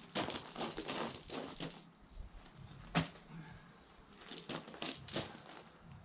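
Footsteps crunching on gravel in irregular runs, with a single sharp knock about three seconds in.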